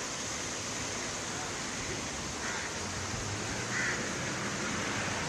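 Steady hiss of seaside ambience, with two faint crow caws about two and a half and four seconds in.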